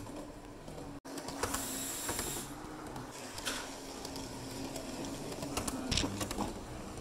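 Model railway running: a steady hum from a small electric motor with scattered clicks and rattles, and a short hiss about one and a half seconds in.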